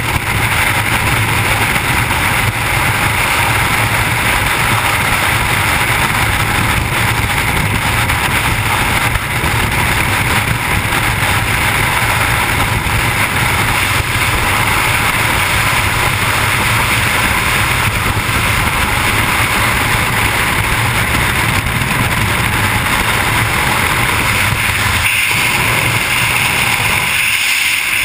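Freefall wind rushing over a skydiver's camera microphone: a loud, steady roar of air. It changes character near the end, as the low rumble drops away.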